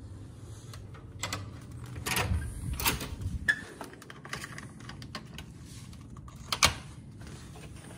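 Hotel room door being unlocked and opened with a keycard: a run of clicks and clacks from the electronic lock and lever handle in the first few seconds, then one loud sharp click about two-thirds through as the keycard goes into the wall power slot.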